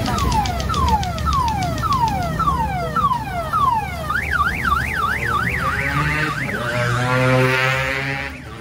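Electronic car-alarm siren effects played through the odong-odong kiddie ride's loudspeaker, cycling through patterns: a falling whoop repeated about twice a second, then from about four seconds in a fast rising-and-falling wail, then a quicker warble that cuts off abruptly near the end.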